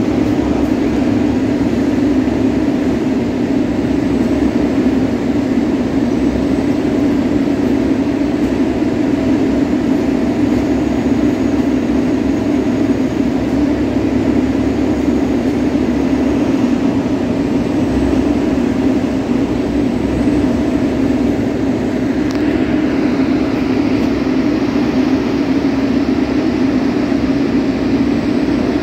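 Steady rumble of a freight train of tank wagons rolling slowly through a station.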